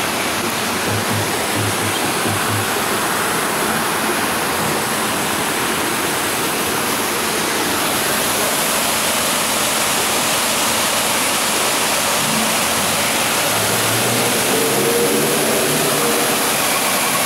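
Steady rushing of an artificial waterfall pouring over a concrete wall into the ride's water channel, growing slightly louder near the end.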